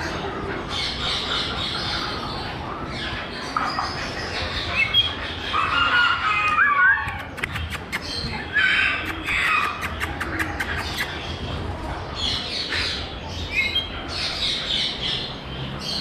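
Caged parrots squawking and chirping, short calls following one another throughout, with a quick run of sharp clicks about seven seconds in.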